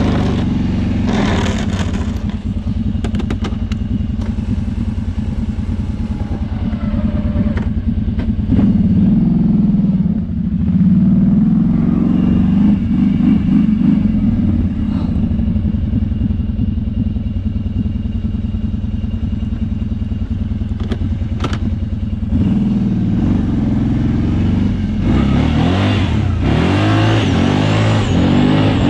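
Kawasaki Brute Force 650i ATV's V-twin engine running while plowing snow, its note rising and falling with the throttle. It gets louder about a third of the way in, eases off, then builds again and climbs in pitch near the end.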